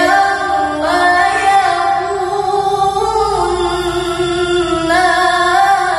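A female Quran reciter (qoriah) chanting in melodic tilawah style, with no accompaniment: one unbroken phrase of long held notes that step up and down with small ornamental turns.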